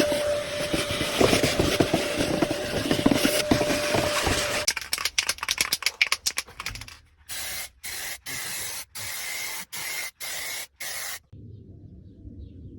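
Compressed-air blow gun blowing grinding dust and debris off the car body. A steady hiss runs for about four and a half seconds, then flutters in quick bursts, then comes as a run of short half-second blasts.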